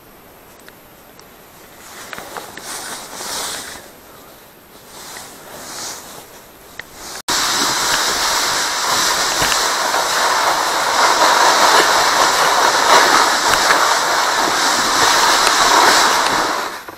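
Light handling rustles, then about seven seconds in a loud, steady scraping hiss that lasts nearly ten seconds: a sled being towed by rope across snowy ice, heard from the sled itself.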